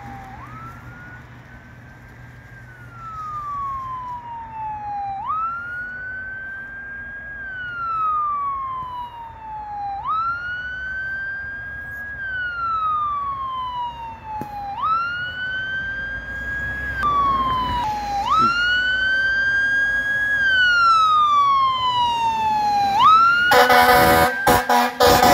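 Fire engine siren wailing, each cycle climbing quickly in pitch and then falling slowly, about every five seconds, growing louder as the truck approaches. Near the end a horn sounds in short, rapid blasts over it.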